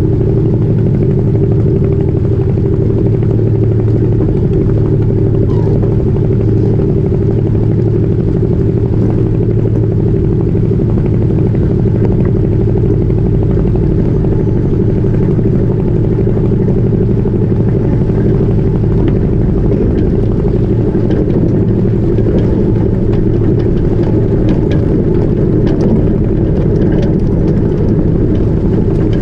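Albin Vega sailboat's inboard engine running at a steady speed, a low even drone, with water rushing past the hull.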